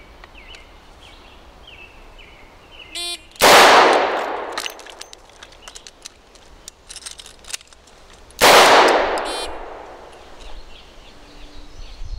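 Shot-timer start beep, then at once a shot from a Smith & Wesson Model 66 .357 Magnum revolver with a long echoing tail. Light metallic clicks and clatter follow as the cylinder is swung out, the spent cases are ejected and a speed loader reloads it. A second shot comes about five seconds after the first. Birds chirp before the beep.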